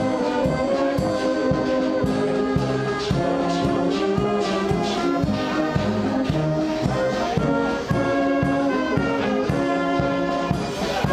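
Brass band music with a steady beat, trombones and trumpets playing held notes.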